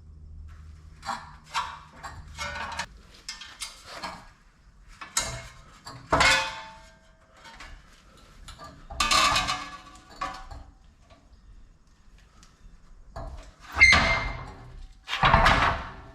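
Aluminum sheet-metal pieces and tools clanking and rattling as they are handled at a workbench: a series of separate metallic clanks, some with a short ring, the loudest two near the end.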